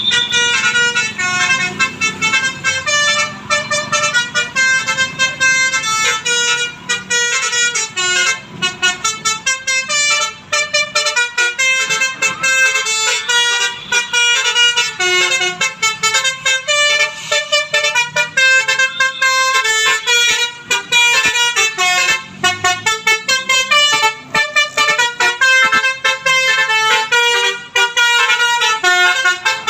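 Basuri telolet bus horn playing a fast melody of short notes that change pitch several times a second, without a break.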